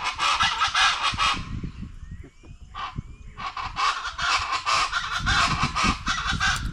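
Birds calling loudly in fast runs of harsh, honking notes, about ten a second, in two long bouts: the first stops about a second and a half in, the second starts about three and a half seconds in.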